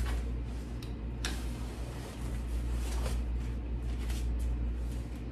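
A single sharp click about a second in as the Valco Baby bassinet is released from the Snap Duo Trend stroller frame and lifted off, followed by a few faint knocks of handling, over a steady low hum.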